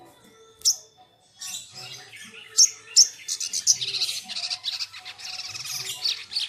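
A caged sogok ontong (sogon) calling: a few loud, sharp high chips, then a fast chattering run of high notes from about three seconds in.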